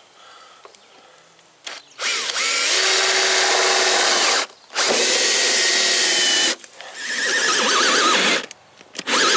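Cordless drill boring a larger hole through a house's exterior wall along a pilot hole, starting about two seconds in and running in three spells with short pauses, its motor pitch dipping and recovering under load.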